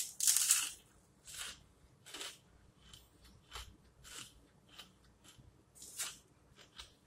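Close-up crunching and chewing of salted potato chips: one loud bite just after the start, then a run of smaller crisp crunches about twice a second that grow fainter.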